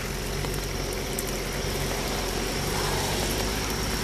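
Water running out of a pool pump's discharge hose over a steady low mechanical hum.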